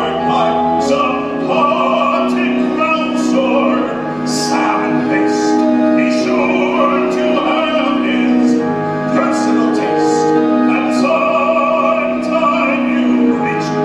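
Stage-musical singing with orchestra: several voices hold long, sustained notes over the orchestral accompaniment.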